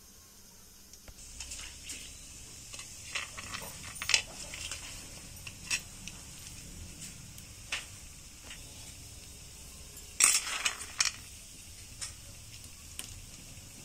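Almonds and cashews frying in hot oil in a black kadhai: a steady sizzle sets in about a second in. Scattered clicks and clinks of a utensil against the pan run through it, with a loud clatter about ten seconds in.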